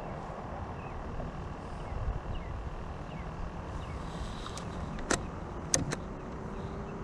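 Outdoor ambience aboard a small fishing skiff: a steady low rumble with a few faint high chirps, and three sharp clicks or knocks about five to six seconds in.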